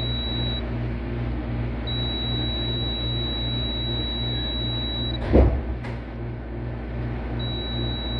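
Multimeter continuity beep, a steady high tone that sounds while the probes touch the compressor terminals, stopping and starting again twice as the probes are moved. Under it a steady hum with a low pulsing throb, and one loud thump about five seconds in.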